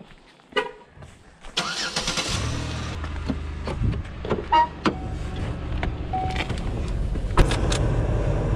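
A car: a short horn toot about half a second in, then the engine running with a steady low rumble, a few clicks and knocks of the door being worked, and a car door shutting about seven and a half seconds in.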